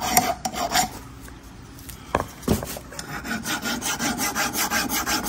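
Small hand file scraping back and forth on a steel brake caliper bracket, taking the rust off the pad contact areas so the pads can slide freely. The quick strokes pause for a moment about a second in, with a couple of knocks, and then resume at about five a second.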